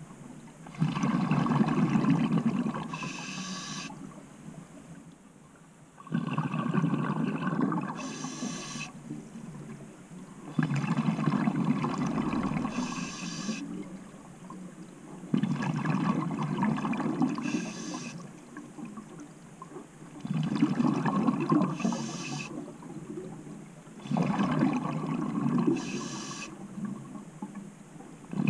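Scuba diver breathing through a regulator underwater: each breath is a short hiss of inhalation followed by a burst of exhaled bubbles that fades away, about one breath every five seconds.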